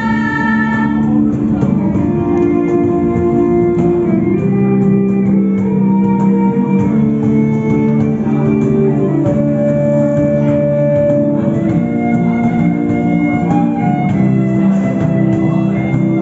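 Instrumental music of long held chords that change slowly from one to the next, with a singing voice trailing off in the first second.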